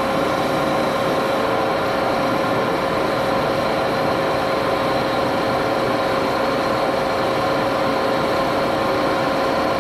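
Axelson geared-head engine lathe running steadily at 473 RPM, an even machine hum with a constant gear tone.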